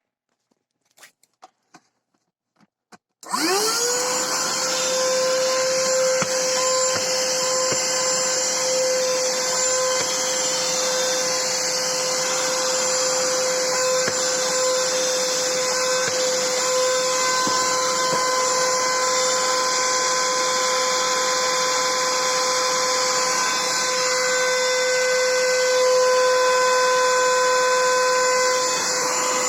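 Black & Decker BDH2000PL cordless handheld vacuum: a few faint clicks, then the motor switches on about three seconds in with a quick rising whine and runs steadily with a high whine and rushing air. It is running on its newly rebuilt lithium battery pack.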